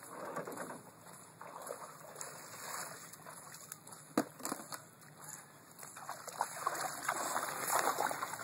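Feet wading and splashing through shallow water, with one sharp knock about four seconds in; the splashing is loudest near the end.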